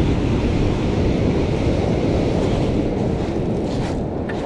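Steady rushing noise of breaking surf mixed with wind buffeting the microphone, heaviest in the low end.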